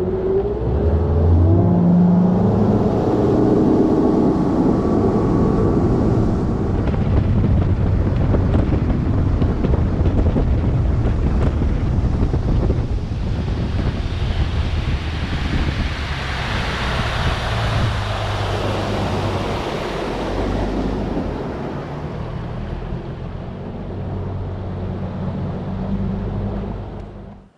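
An engine running steadily under heavy wind noise on the microphone, the rushing hiss swelling in the middle, before everything drops away abruptly at the very end.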